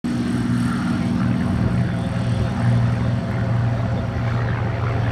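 Yakovlev Yak-3U's piston engine and propeller at full power on its takeoff run and lift-off, a loud, steady drone.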